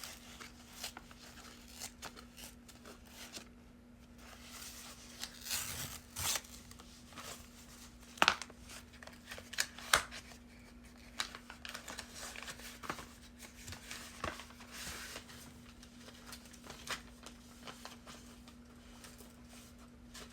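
Packaging being opened by hand: scattered tearing, crinkling and rustling with sharp clicks, the loudest clicks about eight and ten seconds in, over a faint steady hum.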